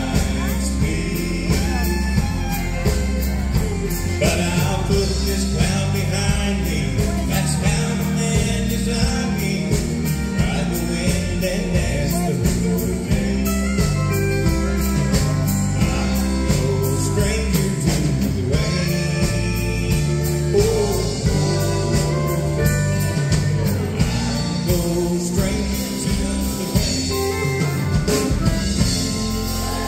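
A live country band playing, with fiddle, acoustic guitars, electric bass and drum kit, and a man singing lead.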